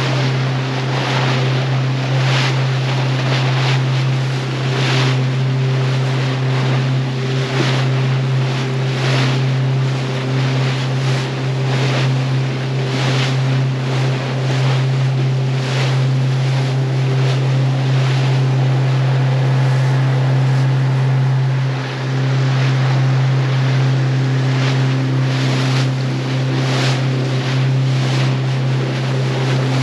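Small open boat's motor running steadily at cruising speed, with water rushing along the hull and repeated splashes as the bow slaps through the waves, plus wind buffeting the microphone. The motor's hum dips briefly about two-thirds of the way through.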